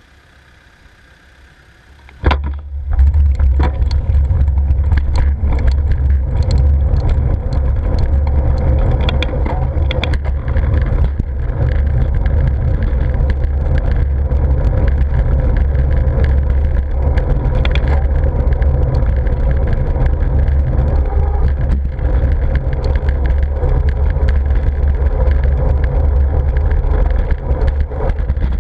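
Wind buffeting the microphone of a GoPro on a moving bicycle: a loud, steady, deep rumble with frequent rattling clicks from the bike over the road surface. It starts abruptly about two seconds in, after a faint stretch.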